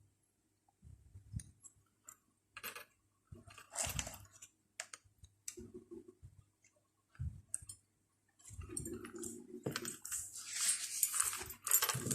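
Scattered small clicks, taps and short scratchy rustles of a Chinese brush and drawing tools being worked on paper, with a longer run of rustling near the end.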